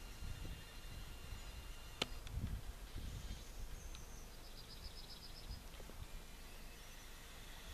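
Faint outdoor ambience with a low rumble. A sharp click comes about two seconds in, and a small bird gives a quick run of about eight high chirps about halfway through.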